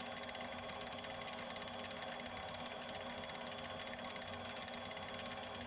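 Harbor Freight benchtop mini lathe running at a steady speed, with an even motor whine.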